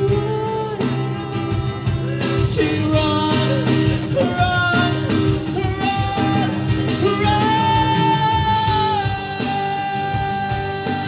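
Live male vocal singing into a microphone with long held, wavering notes over a band backing. Steady percussion comes from a Roland Octapad electronic drum pad played with sticks.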